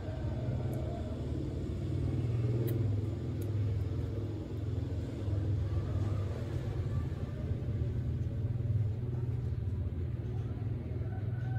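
A steady low rumble, with a few faint ticks in the first few seconds.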